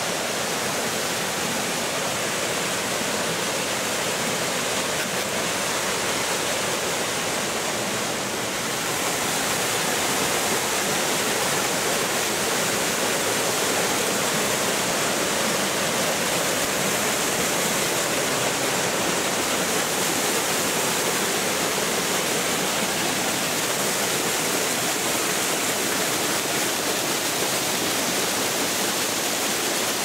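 Small waterfall on a forest stream, water rushing and splashing over boulders into a shallow pool in a steady, even rush. It grows a little louder about nine seconds in.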